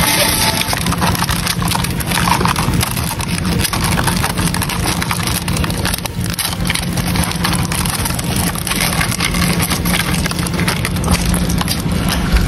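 Hercules beetle and Palawan giant stag beetle clawing and scratching at a bark-covered log as they grapple, close to the microphone: a dense, continuous crackle of small scratches with a steady low hum underneath.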